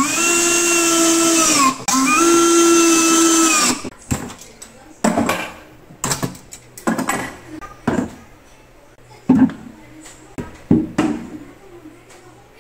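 Cordless drill-driver running twice, about two seconds each, driving screws into the wooden cabinet, its pitch sagging as each run ends. Then scattered knocks and taps of wood and tools being handled.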